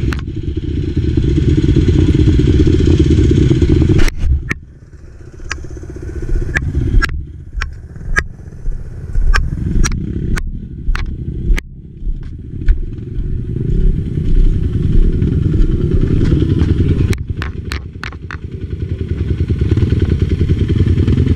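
Enduro motorcycle engine running under way, easing off about four seconds in and picking up again later. Sharp knocks and rattles come through the middle section.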